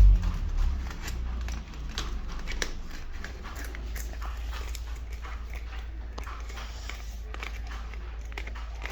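Pomeranian puppy sounds: scattered light clicks and taps over a steady low hum.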